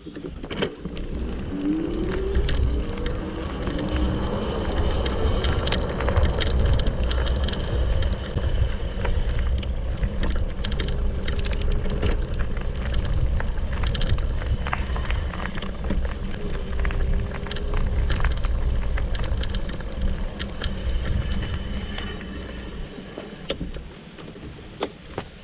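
Electric bike ridden over a rough dirt path: a steady low rumble with frequent rattles and knocks. The motor's whine rises about two seconds in and comes back briefly twice later. It eases off near the end.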